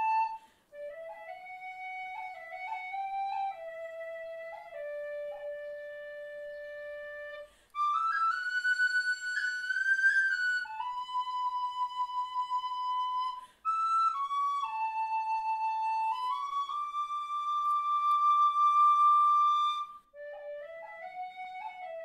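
Background music: a solo woodwind melody played as slow phrases of held notes, with short pauses between phrases.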